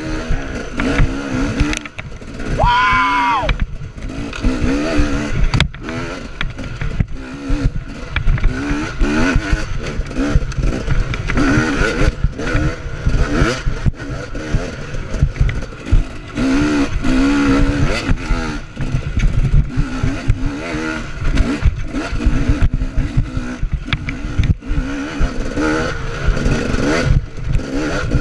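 Dirt bike engine revving up and down as it is ridden hard over a rough woodland trail, with frequent knocks and clatter from the bike over the ground.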